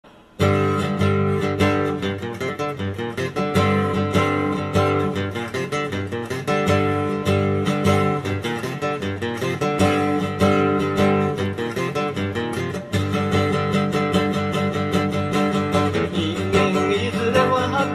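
Background music: strummed guitar playing a steady rhythm, starting about half a second in.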